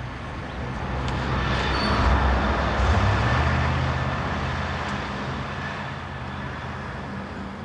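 A road vehicle passing by: engine hum and road noise swelling to a peak about two to three seconds in, then slowly fading away.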